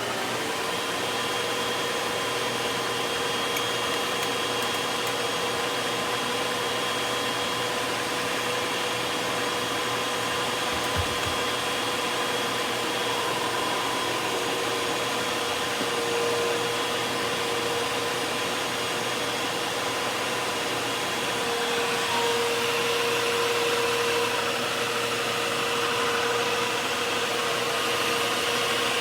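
Hoover WindTunnel 2 upright vacuum cleaner running steadily with a steady whine, getting a little louder about two-thirds of the way through. The vacuum's airway is completely clogged, so it is not picking up dirt.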